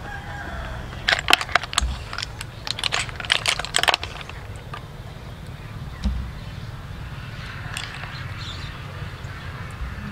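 Cooked river snail shells clicking and clattering against one another and the metal tray as they are picked out by hand. A quick run of sharp clicks lasts about three seconds, and a single soft knock follows.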